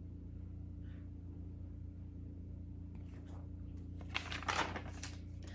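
A picture-book page being turned, a short paper rustle about four seconds in, over a steady low hum.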